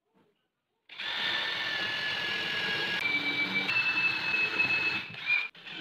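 DeWalt cordless drill driver running, driving a screw down into a wooden fence. Its motor whine starts suddenly about a second in and steps up in pitch twice, then breaks off briefly near the end.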